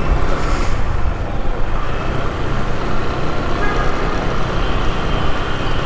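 Bajaj Pulsar 135LS single-cylinder motorcycle riding through town traffic. Steady wind rumble on the camera's microphone mixes with the engine and the surrounding road traffic.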